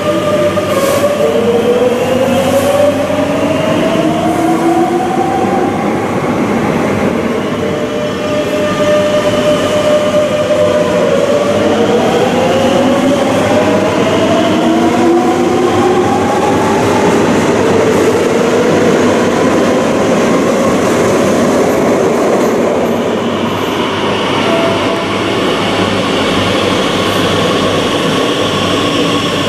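Madrid Metro electric train pulling out of an underground station. Its traction motors whine and rise in pitch twice as it accelerates, over the steady running noise of the wheels on the rails.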